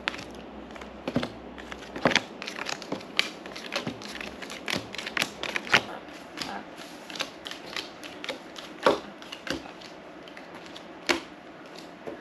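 Playing cards being dealt and laid down one by one on a wooden table: a run of irregular light clicks and slaps, with two louder snaps in the second half.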